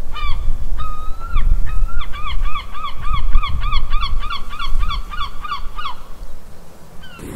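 Gull calling: a few drawn-out cries, then a fast, even series of short cries at about four a second that stops about six seconds in, over a steady low rumble.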